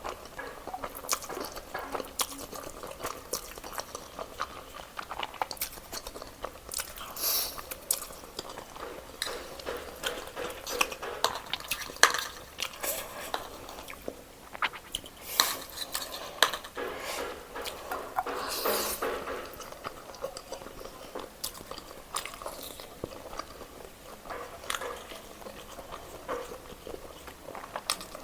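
Close-up eating of black bean noodles: chewing and biting, with cutlery repeatedly clicking and scraping against the dish.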